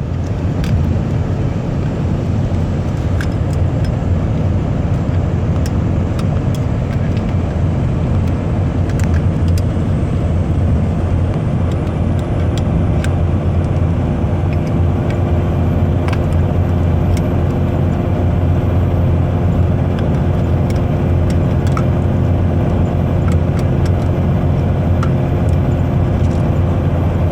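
Steady low road-and-engine rumble inside the cabin of a moving car, with scattered light clicks and taps throughout.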